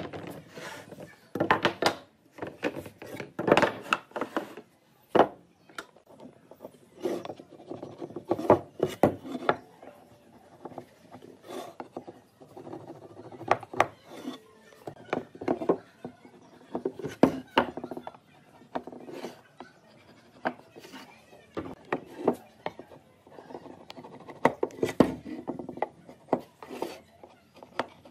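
Shaped wooden boards knocking and sliding against one another and against a wooden workbench as they are handled, with short scrapes of a marking gauge drawn along the wood. The knocks come irregularly throughout.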